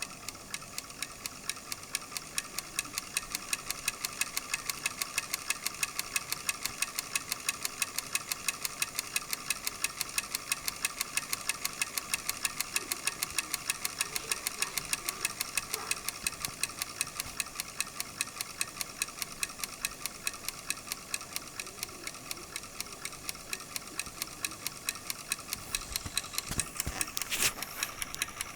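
Vacuum cleaner universal motor running slowly out of its housing, with a steady, rapid ticking, roughly five ticks a second, over a steady hum. The ticking comes from its carbon brushes lifting and dropping on an out-of-true commutator, the fault that makes the motor spark heavily at full speed. A louder knock sounds near the end.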